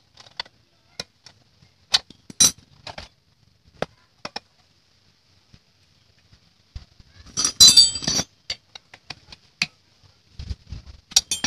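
Metal hand tools clinking and clicking against the scooter engine's bolts and each other as a T-handle socket wrench works the fixings loose: scattered sharp clinks, with a longer clatter of metal about two-thirds of the way through.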